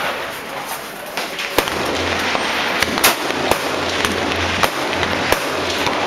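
Rifle shots on an outdoor shooting range: about six sharp cracks at irregular intervals, over a steady hiss.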